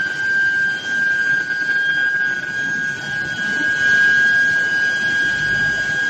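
Steady high-pitched whine from the induction heating coils of a steel billet preheating line, over a rough, even machinery noise from the roller conveyor line.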